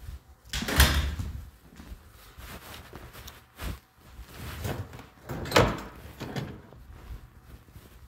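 Phone handling noise: the microphone rubbing and bumping against fabric, with rustling scuffs and two louder knocks, one about a second in and one about five and a half seconds in.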